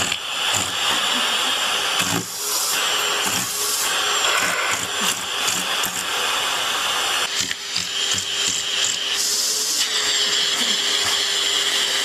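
Vacuum cleaner running with its hose nozzle against a cat's fur: a steady suction rush over a motor hum, its tone shifting several times as the nozzle moves.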